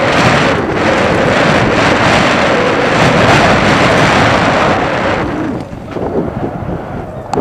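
Wind buffeting a helmet-mounted microphone as a mountain bike rolls fast down a dirt trail, mixed with the rumble of the ride. About five seconds in the noise drops off and breaks up into lighter knocks as the bike comes onto pavement.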